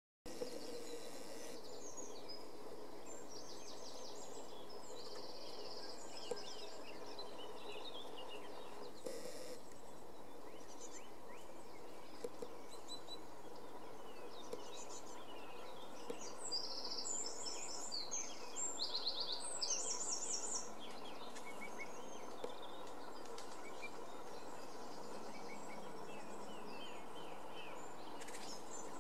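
Small songbirds singing in the background: high chirps and quick trills, busiest and loudest about halfway through, over a steady faint hum.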